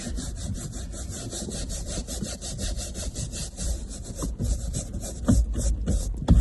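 Rapid back-and-forth scrubbing of bird droppings off a surface, a rasping stroke about six times a second, with a few knocks near the end.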